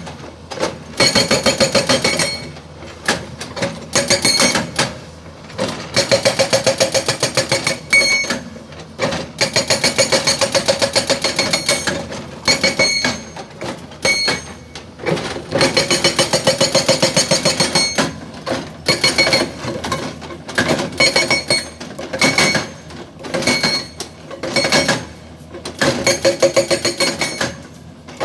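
GBN 210TL hydraulic rock breaker hammering its chisel into rock. The rapid blows come in bursts of a few seconds with short pauses between, and they have a metallic ringing tone.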